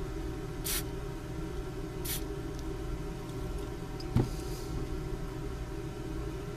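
Two short hisses of Ballistol aerosol spray, about a second and a half apart, over a steady low hum. A single sharp click comes about four seconds in.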